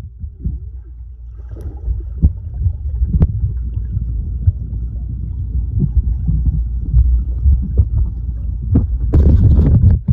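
Muffled low rumble of pool water picked up by a camera held underwater, with scattered clicks and bubbling. A louder, brighter rush of water near the end.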